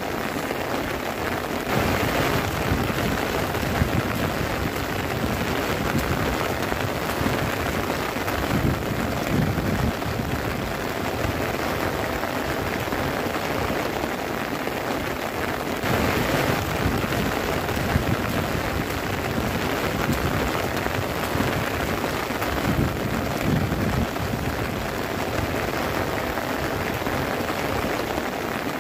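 Heavy rain falling steadily on the fabric of a tent, heard from inside it, swelling louder about two seconds in and again around sixteen seconds.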